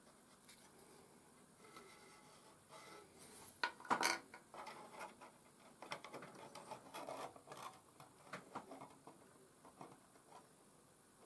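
Small laser-cut MDF parts handled and pressed into place on a model bridge frame: faint taps, clicks and rubbing, loudest in a short cluster about four seconds in, with scattered lighter clicks after.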